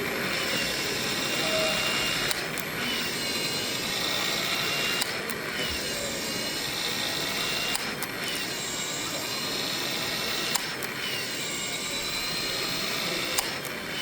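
Powered PEX-A expansion tool working the end of 2-inch PEX-A pipe, repeating its expand cycle about every 2.7 seconds: a steady motor whine with a sharp click at each cycle, the pitch dipping just after each click.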